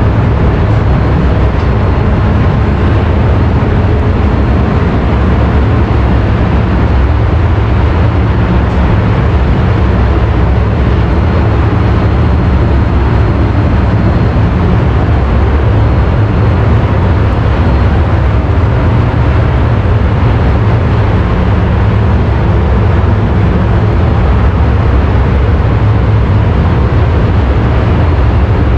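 Loud, steady, deep drone of a ferry's engine-room machinery running, unchanging throughout.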